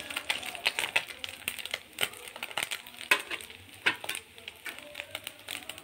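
Small fish sizzling in hot oil in a kadhai, being fried until crispy, with a spatula scraping and turning them in irregular strokes.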